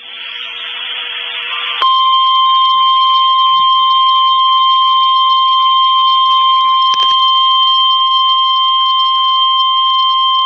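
NOAA Weather Radio's 1050 Hz warning alarm tone: a single loud, steady beep that starts about two seconds in and holds for about nine seconds, signalling that an urgent alert is about to be broadcast. Before it comes a short stretch of harsh buzzing noise.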